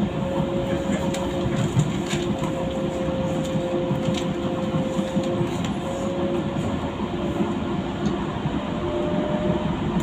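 Docklands Light Railway train running at speed, heard from inside the carriage: a steady rumble with a constant hum of two held tones and a few faint clicks from the wheels.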